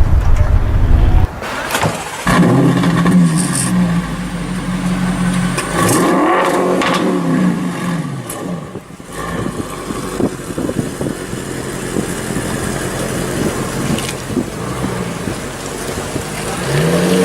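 Audi RS6 C7 Performance's twin-turbo V8 through a Milltek exhaust, running and revving. The pitch swings up and down a few times, with several sharp cracks. It settles to a steadier, lower note and rises again near the end.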